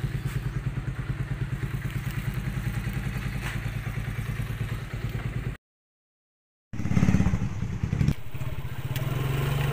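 Motorcycle engine idling with an even, rapid putter. It cuts out abruptly for about a second, then the motorcycle is heard running under way with a steady engine note.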